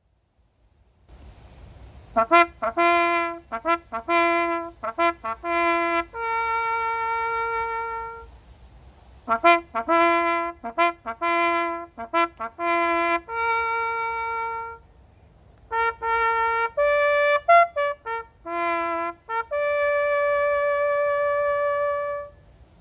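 A solo trumpet playing a ceremonial call in three phrases. Each phrase is a run of quick short notes ending on a long held note.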